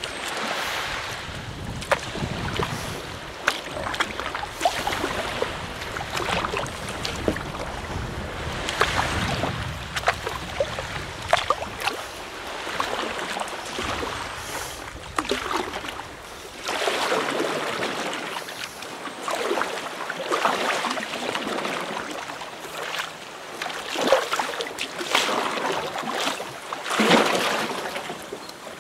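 Water splashing and sloshing around a kayak, in surges every second or two as the paddle dips and the chop slaps the hull. Wind buffets the microphone with a low rumble that stops a little past halfway.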